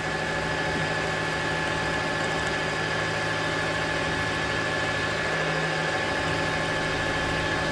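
Milling machine running steadily, a 12 mm ball-nose end mill cutting a slot in a motorcycle brake disc.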